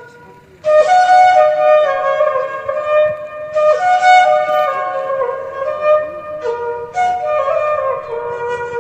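Flute music: a melody of held notes stepping up and down, coming in suddenly just under a second in.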